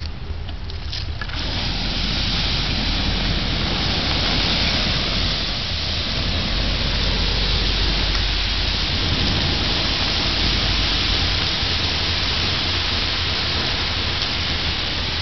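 Water poured from a watering can onto the glowing embers of a burning brush pile, hissing and spattering steadily as it turns to steam; the fire is being quenched before the wood burns to ash, so that charcoal is left. The fire crackles briefly before the hiss starts about a second in.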